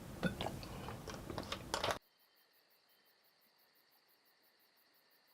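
A few irregular crunching clicks over a steady hiss, cutting off abruptly to silence about two seconds in.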